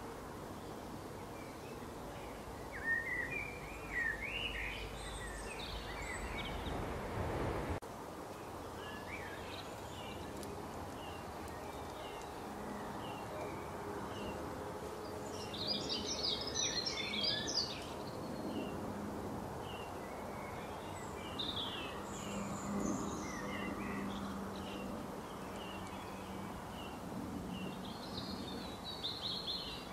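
Small birds chirping and singing in the background over a steady outdoor hum, with a denser stretch of song about halfway through.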